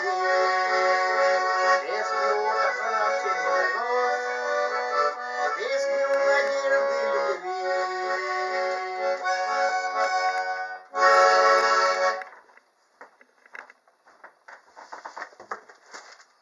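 Accordion playing the closing bars of a song, ending on a loud held chord that stops about twelve seconds in; a few faint clicks follow.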